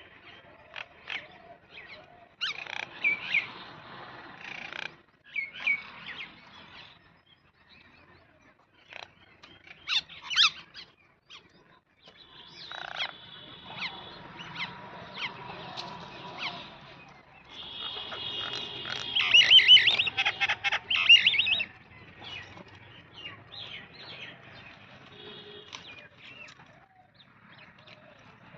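Small birds chirping and calling, many short notes, with a loud run of rapid repeated chirps about two-thirds of the way in.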